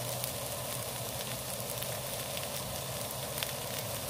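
Barbecue-marinated pork loin steaks frying in a pan on a camping gas stove: a steady sizzle with scattered small crackles.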